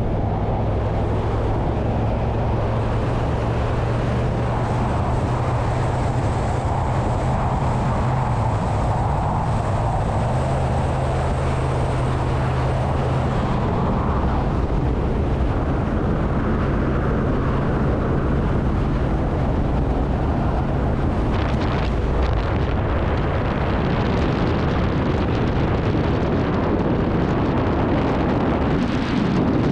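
Vehicle engine and road noise while driving, a steady drone. The engine note shifts slightly about ten seconds in.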